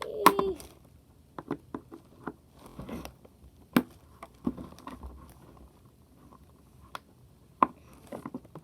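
Scissors clicking and snipping at a plastic zip tie, with plastic packaging crinkling as it is handled; sharp, scattered clicks at irregular intervals.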